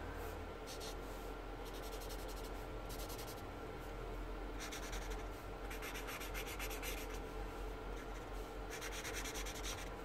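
A marker pen rubbing back and forth across paper, colouring in short bursts of strokes.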